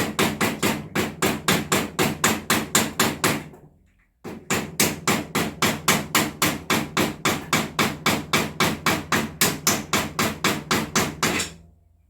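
Hammer blows on a drift, metal on metal, about five quick strikes a second in two long runs with a short break about four seconds in, driving out a stuck part of a racing car's rear suspension.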